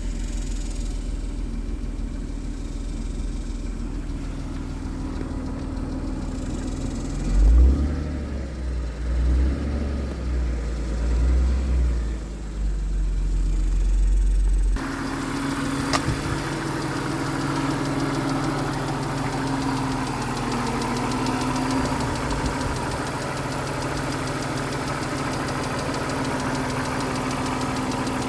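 BMW Z3 2.5's inline-six engine idling with a clicking noise from the engine. About halfway through the sound changes abruptly: a heavy low rumble with loud swells gives way to a clearer, brighter, steady engine sound.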